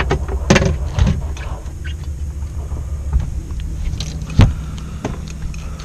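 Steady low rumble on board a fishing boat, with a few sharp knocks: one about half a second in, another about a second in, and the loudest about four and a half seconds in.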